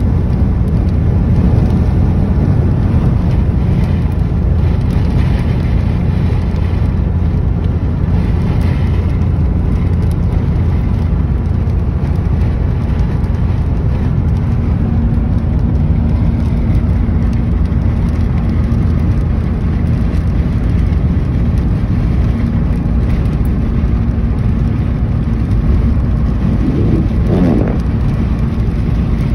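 Car cabin noise at highway speed: a steady low rumble of tyres and engine. A steady low hum comes in about halfway, and a short rising-then-falling tone sounds near the end.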